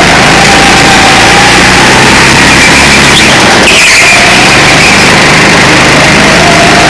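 Go-kart engine running hard, very loud from a camera mounted on the kart itself. Its pitch sags through a corner near the middle and climbs again as the kart accelerates onto the straight.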